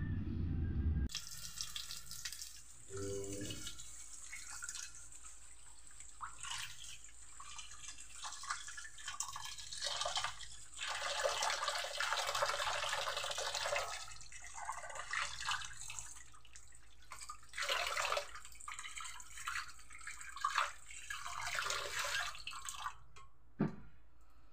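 Water splashing and sloshing in a stainless steel pot as raw pork cubes are rinsed by hand, in irregular swishes and pours.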